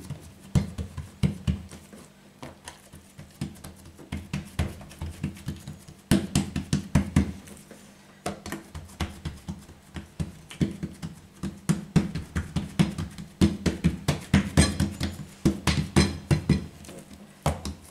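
Hands pressing and patting soft yeast dough flat on an oiled tabletop: uneven runs of soft, dull pats and slaps, with a quieter spell a couple of seconds in.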